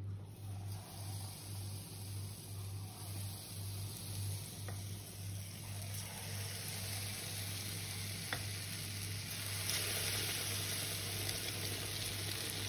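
Tempura-battered courgette sticks deep-frying in hot oil in a frying pan: a steady sizzle that grows louder as more battered pieces are dropped in. Two light clicks are heard partway through.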